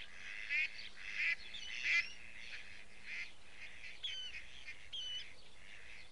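Waterbirds calling at a pond: three harsh, raspy calls about two-thirds of a second apart in the first two seconds, then several thin, wavering whistled notes.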